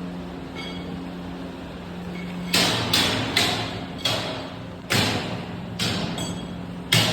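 A steady machine hum, then from about two and a half seconds in, a series of sharp hammer blows on sheet-metal duct, each with a short metallic ring, about one or two a second.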